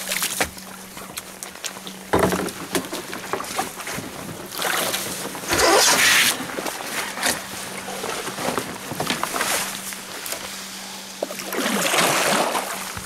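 Sea kayak paddle strokes: the blade swishes and splashes in the water every few seconds, loudest about halfway through and again near the end, over a faint steady low hum.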